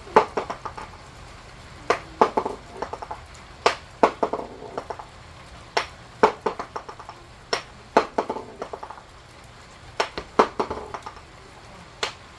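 Metallic clinking and pinging in short clusters about every two seconds, each a sharp strike followed by a few quicker, ringing bounces, over a steady hiss of heavy rain.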